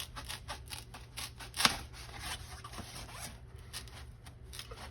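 Foam packing material being cut by hand: a run of short snipping, rasping strokes, a few each second, with one louder stroke about 1.7 s in.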